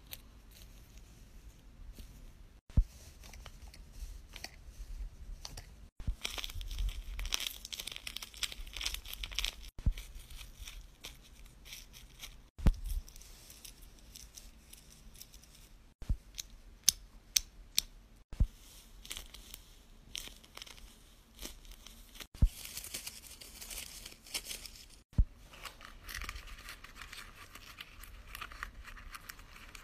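Homemade fidget toys being handled: sharp clicks and taps scattered throughout, with stretches of crinkling, rustling paper and tape. Near the end a paper infinity cube is flipped over and over.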